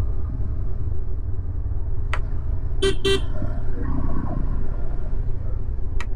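Low, steady rumble of a Yamaha FZS V3 motorcycle being ridden, with wind on the camera microphone. About three seconds in, a vehicle horn gives two quick short beeps.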